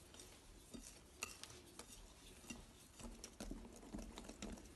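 Wire whisk stirring thick cake batter in a glass bowl by hand, faint, with irregular light clicks.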